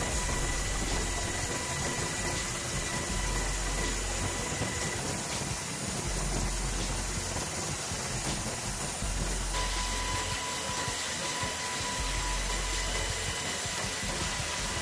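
Steady rushing hiss with a low rumble that swells and fades every second or two.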